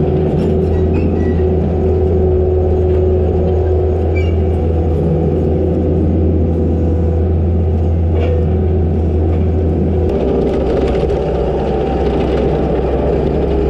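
Takeuchi TL250 compact track loader's diesel engine running steadily, heard from the operator's seat, with a constant low hum and a thin steady whine above it. The engine note shifts lower about ten seconds in as the machine turns and drives back.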